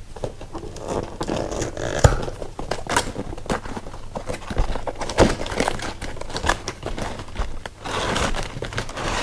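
Tool packaging being opened and handled: cardboard and wrapping crinkling, scraping and tearing in irregular rustles and clicks, with a sharp knock about two seconds in.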